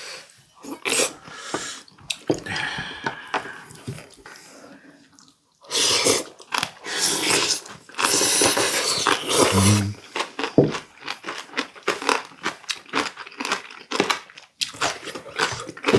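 Close-up chewing of a mouthful of steamed sea squirt: wet, crunchy bites in quick runs, loudest about six to ten seconds in.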